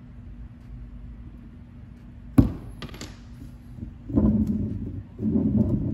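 A single sharp knock of the steel drive shaft and coupler against the wooden workbench, followed by a lighter click. A low hum sits underneath, and a louder, busier low sound, likely background music, comes in about four seconds in.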